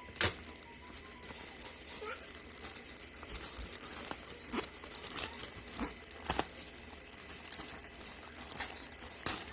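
Handling noise: irregular sharp clicks and crinkling, about a dozen over the stretch, over a low hiss.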